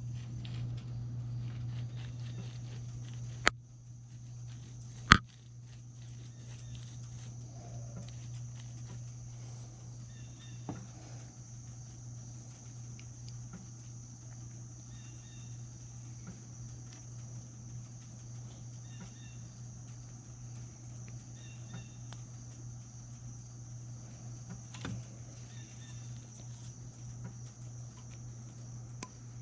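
Small metal parts of a spinning reel clicking and tapping as they are handled, with two sharp clicks about three and a half and five seconds in and lighter ticks after, over a steady low hum.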